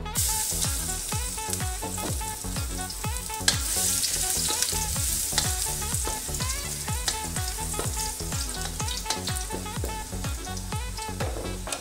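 Chopped garlic dropped into hot oil in a wok, sizzling loudly from the moment it goes in and stirred with a spatula. Background music with a steady beat plays underneath.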